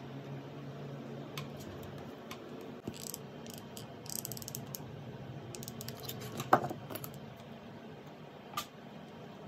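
Stanley hot glue gun trigger clicking as glue is squeezed out, with wooden craft sticks clicking and tapping as they are handled and set down on a wooden board. A run of quick fine ticks comes a little after four seconds in, and the loudest sound is a single sharp knock about six and a half seconds in.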